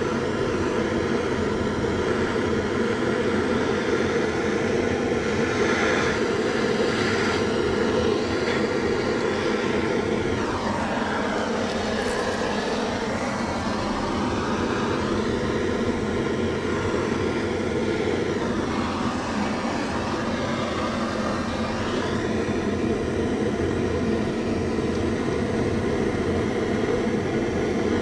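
Shinfuji Power Torch gas torch burning steadily with a loud, even rush as its flame heats a copper water-pipe joint for brazing. Its tone shifts briefly about ten seconds in, then settles back.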